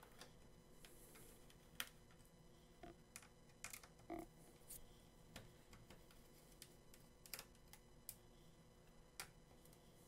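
Faint, irregular clicks and light taps of a screwdriver backing out the small screws that hold a laptop hard drive in place.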